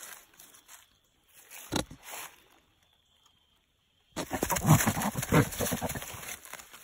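A cashmere buck goat in rut making rapid, low guttural grunts while courting a doe. The loudest burst comes about four seconds in, after a brief quiet gap.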